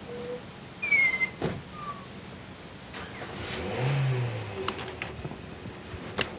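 Small handling noises in a car: a sharp squeak falling in pitch about a second in, then a brief low hum near the middle and a few light clicks near the end.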